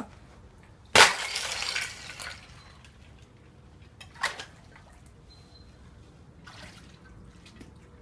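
A thick slab of ice thrown down onto a wet, iced-over path, crashing and shattering with a splash about a second in. Fainter splashes of steps through shallow water over the ice follow.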